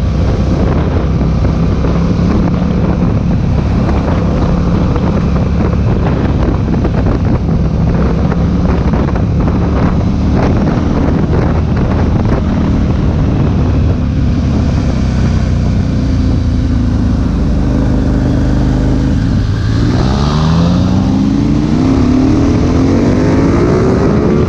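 KTM motorcycle engine with wind rushing over the onboard microphone, first running at a steady cruise. About three-quarters of the way in, the revs drop briefly and then climb steeply as the bike accelerates hard.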